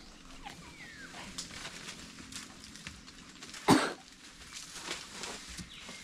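Quiet forest background with scattered light clicks and rustles and a faint falling whistle about a second in, broken by one short, sharp burst about two-thirds of the way through.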